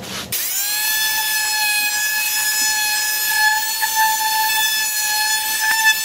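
Dremel Multi-Max MM35 oscillating multi-tool switched on about a third of a second in, its pitch rising briefly as the motor comes up to speed, then running with a steady whine while it carves a small piece of wood.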